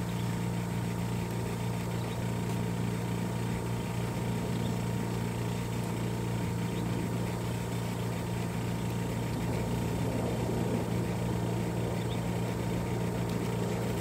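A steady low machine hum, even in level and pitch.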